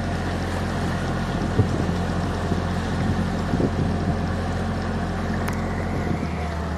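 Open canal tour boat's motor running steadily under way, a constant low hum, with water churning in the wake and wind on the microphone.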